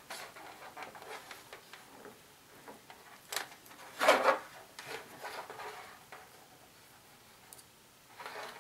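Handling noise of cylindrical 18650 lithium-ion cells and wire leads: light clicks and rubs as the cells are handled and stacked end to end, with a sharp click about three and a half seconds in and a louder brief rub just after.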